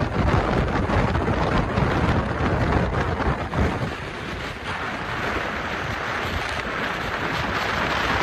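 Wind rushing and buffeting on the microphone through an open car window while driving, mixed with the rolling noise of a passing freight train of covered hopper cars. After about four seconds the deep rumble eases, leaving a steadier hiss.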